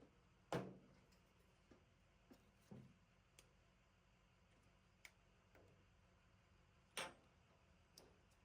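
A few sparse, short clicks and knocks of parts and tools being handled, over near silence; the two loudest come about half a second in and about seven seconds in.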